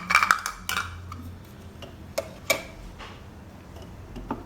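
Toy pot and play-kitchen pieces handled: a short clatter of knocks at the start, then a few separate light clicks.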